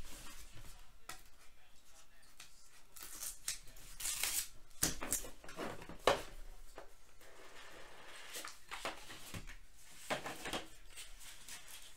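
Trading cards and their cardboard box being handled: irregular rustling, sliding and scraping with light taps and clicks as cards are taken out of the box.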